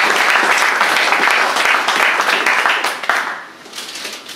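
Audience applauding, many hands clapping at once, fading out about three seconds in.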